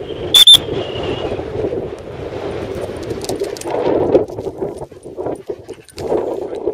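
Two quick, very loud, high-pitched peeps on a dog whistle, fading off with a faint trailing tone, over wind noise on the microphone. Two peeps are the recall signal ("Come!") in this pointer's whistle drill.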